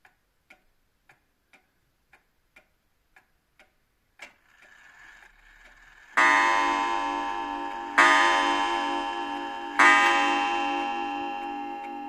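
Aichi Tokei pendulum clock ticking about twice a second; about four seconds in a click and a short whirr, then the hammer strikes the clock's bell three times, about two seconds apart, each stroke ringing on long with a pulsing tone: the clock striking the hour, eleven o'clock.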